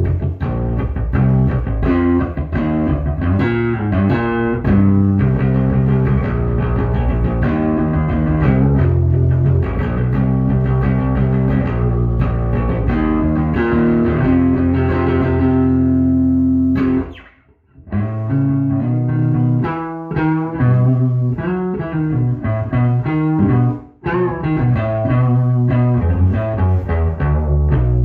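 1976 Rickenbacker 3000 short-scale electric bass played through an amplifier, a run of plucked notes and riffs. The playing stops briefly about two-thirds of the way in, then carries on.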